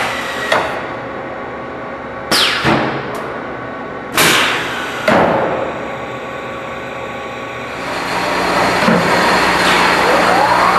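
Automated sheet-metal production machinery running: several sharp metallic clunks about half a second, two and a half, four and five seconds in. Motor whines fall in pitch at the start and rise again near the end.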